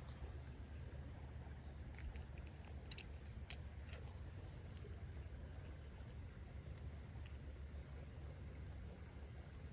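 Insects trilling in one steady, unbroken high-pitched drone, with a couple of short sharp clicks about three seconds in.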